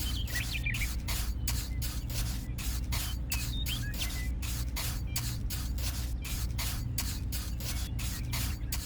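A small motor running steadily: a low hum with a regular hissing tick about three or four times a second.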